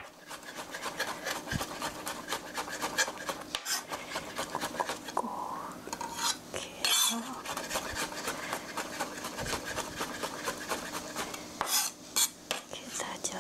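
Kitchen knife mincing garlic cloves on a cutting board: a fast, steady run of chopping taps, with a few louder strokes near the end.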